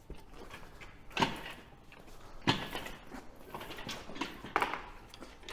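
Engine crane and the chain-hung MGB engine clunking as the engine is worked off its gearbox: three sharp metal clunks, spaced a second or two apart.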